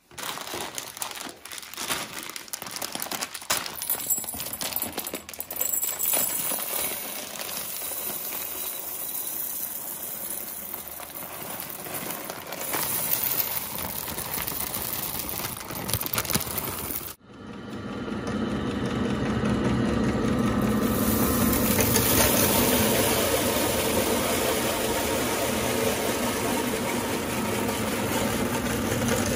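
A plastic bag of coffee beans crinkles as it is handled, and the beans clatter as they are poured. A little past halfway the sound cuts over to a meat grinder running steadily as it crushes the coffee beans.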